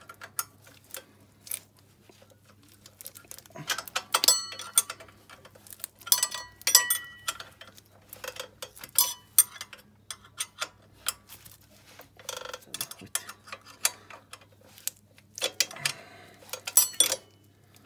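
Steel spanners clicking and clinking on the bolts of a chain-drive ATV's rear axle carrier as the mounting bolts are undone, a stage in slackening the axle to tension the drive chain. Irregular sharp metal clicks, some with a short ring, over a steady low hum.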